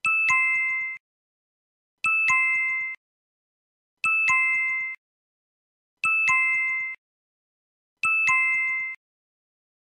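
A two-note chime sound effect, a higher note followed at once by a lower one, played five times about two seconds apart; each chime marks a difference being circled in the answer reveal.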